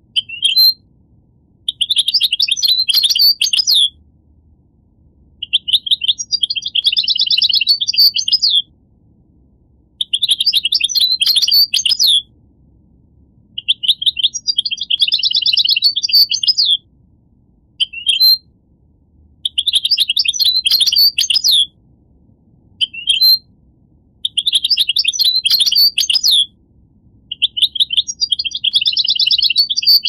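European goldfinch singing: repeated phrases of rapid high twittering notes and trills, each two to three seconds long, separated by short pauses, with a few single short calls between phrases.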